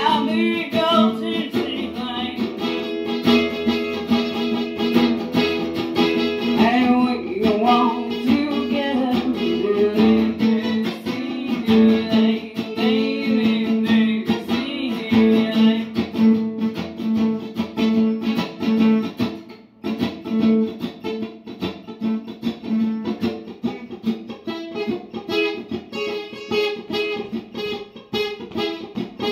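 Acoustic guitar strummed in a steady rhythm, with a voice singing along through the first half.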